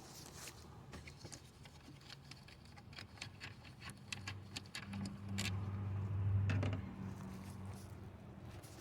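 Faint, irregular small clicks and rattles of hand tools and parts being handled in an engine bay. A low hum swells up and fades away in the middle.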